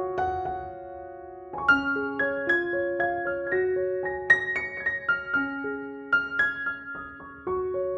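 Background music: a gentle solo piano melody of separate notes and soft chords.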